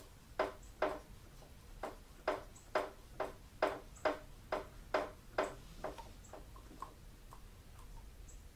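Rhythmic short squeaky clicks, about two a second, from a hand vacuum pump being worked to draw brake fluid through the line while bleeding the brakes. After about six seconds the clicks give way to fainter, scattered ticks.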